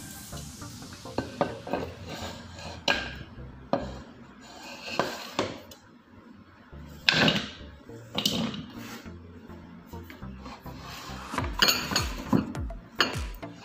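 Irregular knocks and clatter of a large bowl being set down on a ribbed draining board and sliced vegetables being gathered off a plastic cutting board into it.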